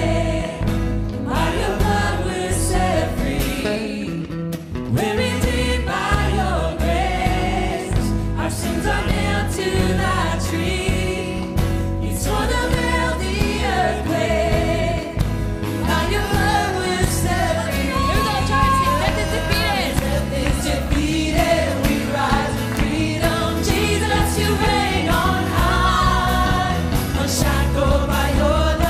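Live worship band playing a praise song: several voices singing the melody together over acoustic guitar, bass, keyboard and drums.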